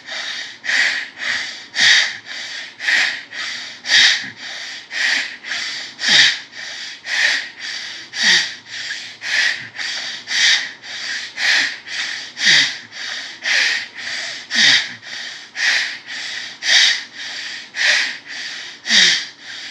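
Forceful, rapid nasal breathing of bhastrika (bellows-breath) pranayama done through alternate nostrils. Sharp sniffing breath strokes come in a steady rhythm of about two a second, alternately louder and softer.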